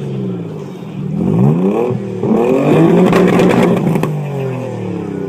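A car engine being revved twice, its pitch climbing and falling with each rev, the second rev held high for about a second before dropping back toward idle.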